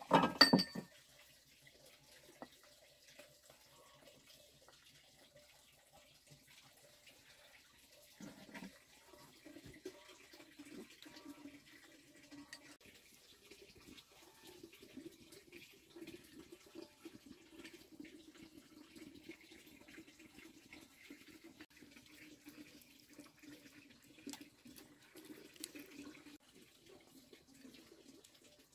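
A sharp clink of a ladle against a bowl at the start, then, from about a third of the way in, a faint steady trickling, water-like sound.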